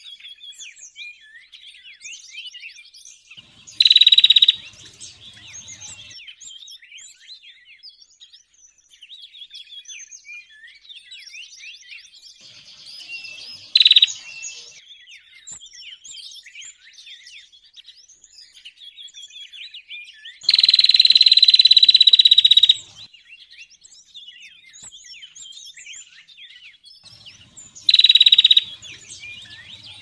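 Bird-lure recording of small forest songbirds, among them ciblek (prinias), chirping in a dense, continuous chorus of quick high notes. Four much louder steady calls cut through it: short ones at about 4, 14 and 28 seconds in, and a longer one of about two seconds near the middle.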